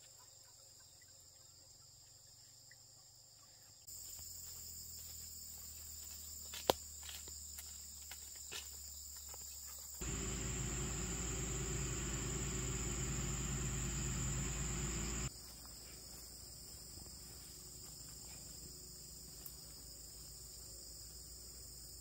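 Insects chirring steadily at a high pitch. About ten seconds in, a louder rushing noise comes in for roughly five seconds, and a few sharp clicks come before it.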